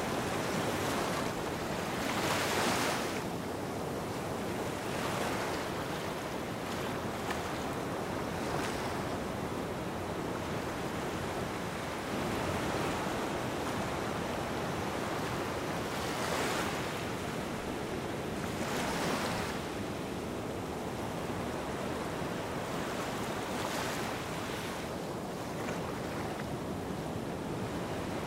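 Small waves washing onto a sandy beach: a steady surf hiss with a brighter swell of wash every few seconds.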